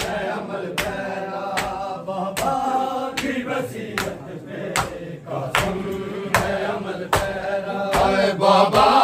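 Mourners beating their chests in unison in matam, a sharp slap about every 0.8 seconds, under a group of men's voices chanting a noha.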